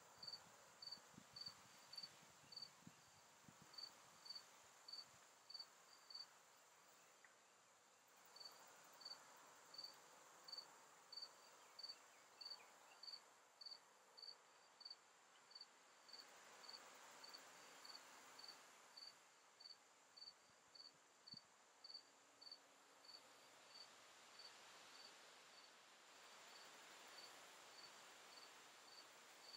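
Faint cricket chirping: short, high chirps repeating evenly a little under twice a second, with a pause of about two seconds near a quarter of the way in, over a steady thin high-pitched buzz.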